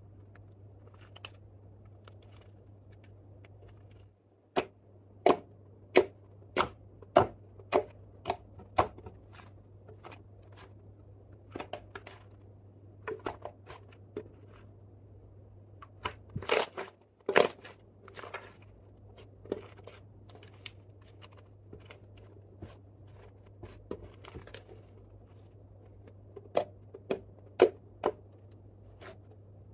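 Thick clear slime mixed with lipstick and eyeshadow being pressed, stretched and poked by hand, making sharp wet clicks and pops as trapped air pockets burst. The pops start about four seconds in, come roughly one every three-quarters of a second, bunch into a louder cluster midway and return near the end, over a faint steady low hum.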